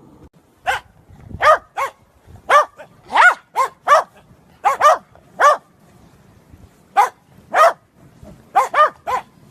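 A dog barking: about fifteen short, high-pitched barks in irregular bursts of one to three, with brief pauses between them.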